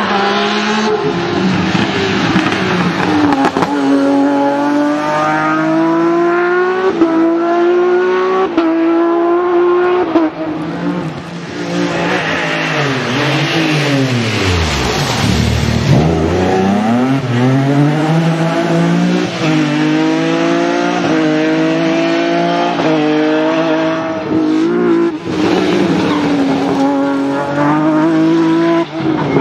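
BMW E46 rally car engine revving hard at full throttle, the pitch climbing and dropping sharply at each gear change, again and again. About halfway through, a car sweeps past, its engine note falling and then rising again.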